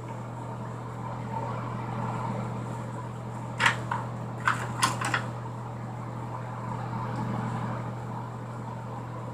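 Steady hum of a bathroom ceiling exhaust fan, with a quick run of four or five light clicks and taps about three and a half to five seconds in.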